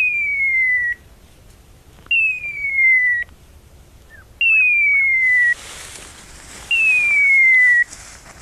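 Hunting dog's beeper collar sounding a falling electronic whistle about a second long, four times at even spacing of about two seconds: the point-mode signal that the dog is holding a bird on point. A rustling hiss joins about five seconds in.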